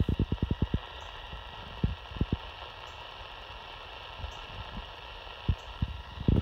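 Steady static hiss from the speaker of a RadioShack TRC-241 handheld CB radio receiving channel 19 AM, with no voice coming through. A quick run of low thumps near the start, and a few more scattered later.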